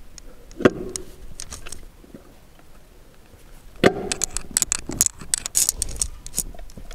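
Metal clunks and clicks as a torque converter is pushed and twisted into an automatic gearbox's bell housing. Two sharp knocks with a short ring come about a second in and near four seconds, followed by a quick run of clicks and rattles.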